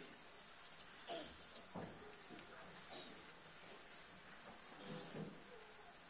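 A steady, high-pitched buzz, pulsing rapidly and evenly, with a few faint low sounds beneath it.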